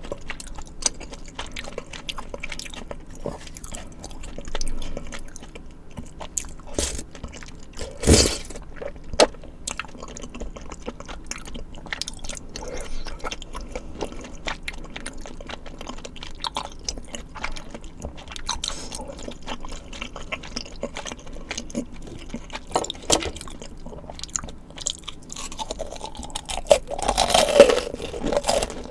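Close-miked eating sounds: chewing and biting of spicy tteokbokki and fried side dishes, with scattered crunchy clicks and wet mouth sounds. A sharp louder crunch comes about eight seconds in, and a louder, fuller burst of chewing near the end.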